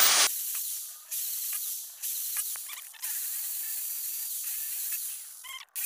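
Bosch electric drill with a small bit boring into a steel half-inch pipe fitting: a louder run stops just after the start, then the drill works in short runs about a second long with brief breaks, the bit cutting the steel with a high hiss.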